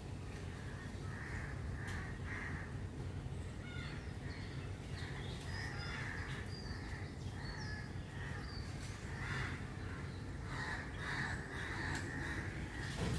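Crows cawing repeatedly, with a few higher bird chirps over a steady low background rumble.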